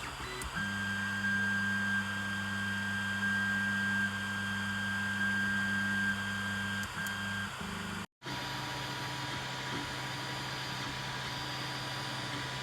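3D printer running, its stepper motors giving a steady whine for about six seconds before the tones shift briefly near seven seconds. After an abrupt cut, a steadier, quieter machine hum.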